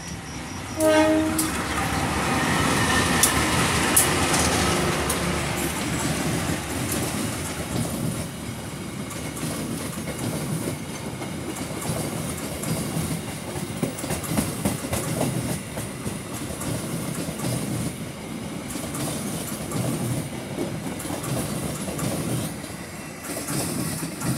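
A diesel-hauled passenger train passing close by: a short horn blast about a second in, the locomotive loudest over the first few seconds, then a long line of coaches rolling past with the wheels clattering over the rail joints.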